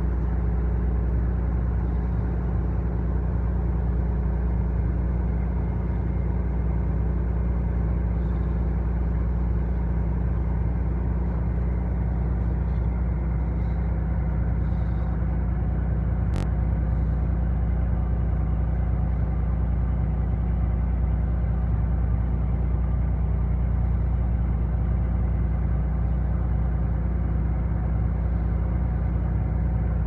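A fishing trawler's diesel engine running steadily, a low, even drone heard on deck. There is a single sharp click about halfway through.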